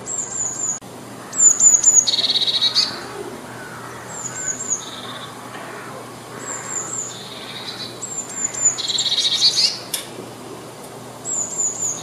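Eurasian blue tit singing: about six phrases, each a run of three or four high, thin notes, several of them followed by a lower, rapid trill.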